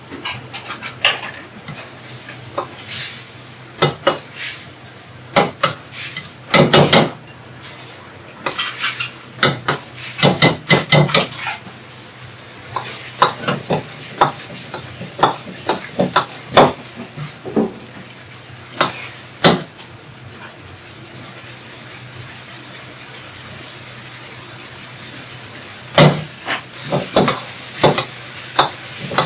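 Metal ladle knocking and scraping against a wok during stir-frying: a run of sharp, irregular clacks, with a quieter stretch about two-thirds of the way through. A steady low hum runs underneath.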